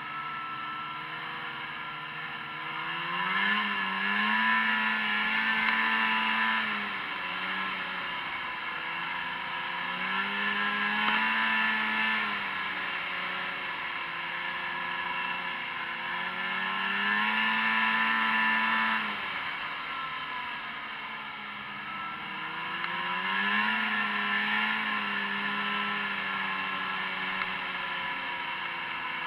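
Snowmobile engine heard from the rider's seat, rising in pitch and loudness as the throttle opens, holding, then falling back as it eases off, four times over.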